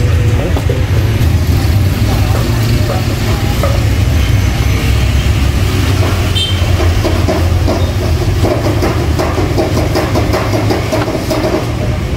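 A steady low mechanical rumble, with short taps of a kitchen knife slicing beef against a wooden cutting board, more frequent in the second half.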